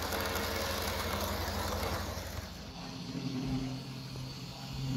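Toy electric train cars rolling past on metal track, a steady rumble and clatter of wheels with a fast low rhythm. After about two and a half seconds this cuts off suddenly and gives way to a quieter, steady low hum.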